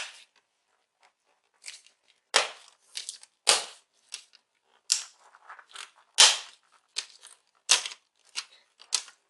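Plastic display bezel of an HP Pavilion 15 laptop being pried off, its clips snapping loose one after another: about a dozen sharp clicks at uneven intervals.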